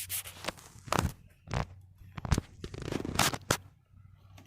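A series of short scrapes and knocks, irregular and of differing loudness, over a low steady hum.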